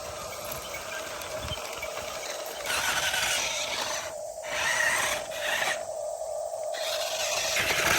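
Small electric motors and gears of a toy RC excavator running with a steady whine, joined by harsher grinding stretches that switch on and off abruptly several times in the second half, as the machine's functions are worked.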